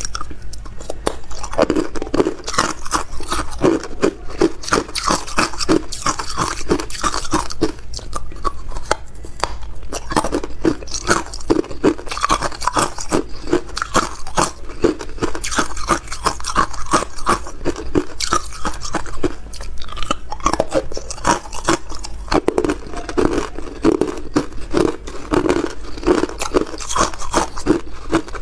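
Hard ice cubes being bitten and chewed: a dense, continuous crunching, several crunches a second.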